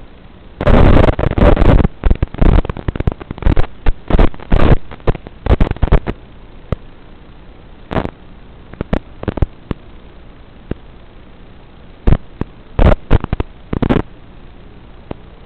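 Bursts of static crackle from an analog FPV video receiver's audio channel over a steady low hiss, flaring up irregularly as the video signal breaks up with interference.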